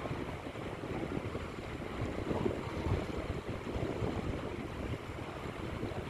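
Wind buffeting the microphone over the wash of small waves breaking on a sandy beach, an uneven rumbling noise with no steady tone.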